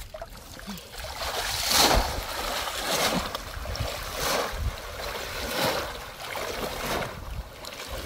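Water splashing and sloshing as a person wades through knee-deep floodwater in a rice paddy, one surge about every second and a bit.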